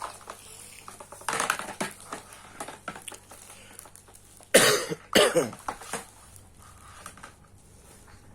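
A person coughs twice in quick succession, a little past halfway. A few light knocks and handling noises sound earlier.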